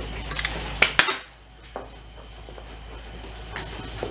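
Two sharp metallic clinks close together about a second in, then a few faint ticks and light handling noise.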